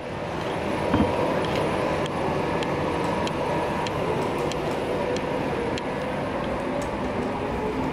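Electric commuter train standing at a station platform, a steady rumble and hum with a single knock about a second in.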